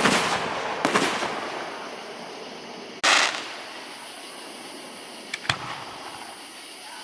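Aerial fireworks shells bursting in a public display. A large burst comes at the start, a sharp crack about a second in, and another large burst about three seconds in. Two quick sharp cracks follow around five and a half seconds, and each report fades away over a second or two.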